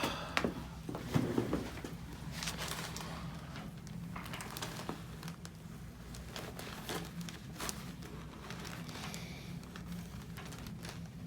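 Quiet room tone with a steady low hum, under faint rustling and a few light clicks of people shifting and handling things.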